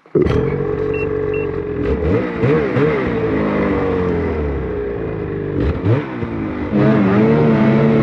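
Snowmobile engine running and revving unevenly, pitch rising and falling as the sled churns out of deep powder snow after being stuck. About seven seconds in it gets louder and steadier as the sled drives away.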